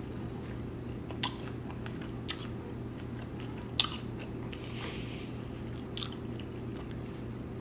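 Close-miked chewing and biting of chicken wings, with a handful of short, sharp mouth clicks and smacks a second or more apart.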